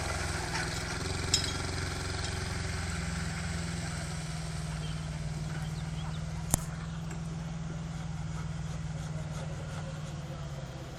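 ALSTOR 830 miniforwarder's engine running steadily, with a small click a little over a second in and one sharp knock just past the middle.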